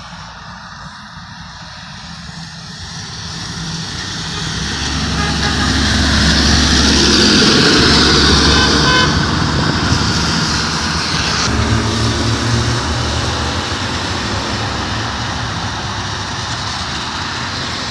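Garbage truck passing close by on wet pavement: diesel engine and a hiss of tyres on the wet road, growing louder over several seconds and slowly fading away. A short high tone sounds about nine seconds in.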